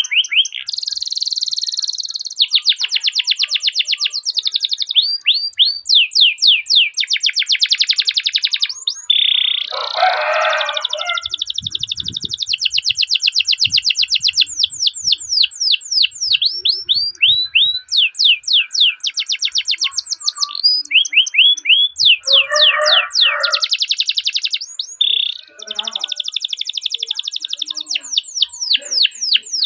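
Domestic canary singing a long, unbroken song: fast rolling trills alternating with runs of quick repeated 'cuit cuit' chirps. The song changes phrase every second or two. It is the kind of continuous song played as a master recording to prompt and train other canaries.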